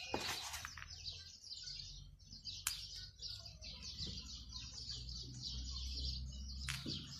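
Small birds twittering, a dense run of quick, high chirps that goes on without a break. A single sharp click sounds a little under three seconds in.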